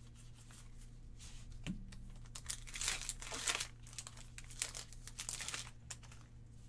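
Foil Pokémon booster pack wrapper crinkling and tearing as it is opened by hand, in irregular crackling bursts, loudest about three seconds in.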